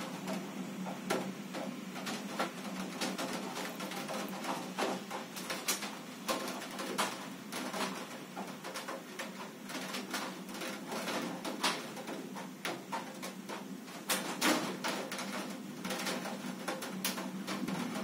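Heavy rain heard from behind a closed window: raindrops striking the glass and sill in many irregular taps and clicks over a steady hiss of the downpour.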